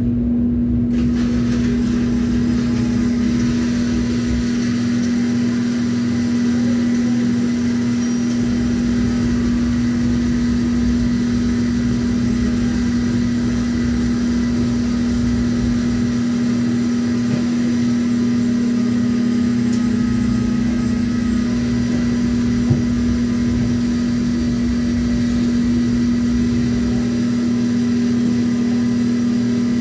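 Steady, loud machine hum of running kitchen equipment, a constant low drone with a strong single tone that does not change, plus one small click about two-thirds through.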